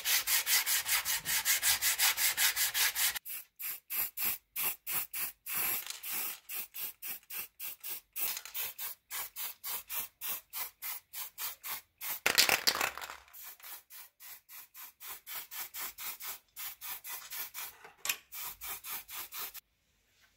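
Sandpaper rubbed back and forth by hand along a corroded steel sword blade, about three to four strokes a second, with one louder scrape about two-thirds of the way through. The strokes stop abruptly near the end.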